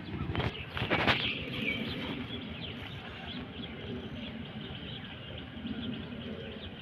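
Small birds chirping over and over, with a few sharp knocks or rattles about a second in.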